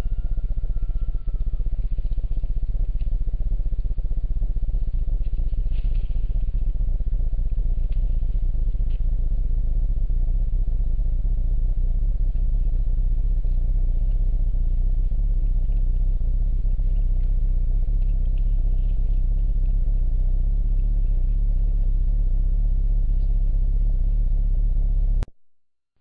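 Steady low rumbling noise from a trail camera's microphone, with a few faint ticks over it; it cuts off suddenly near the end.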